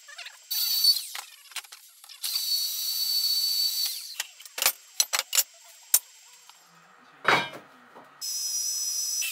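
Portable band saw cutting steel angle iron: a high whine of several steady tones, briefly near the start, for nearly two seconds a couple of seconds in, and again near the end. Between the cuts come clicks of the steel being handled and one louder knock.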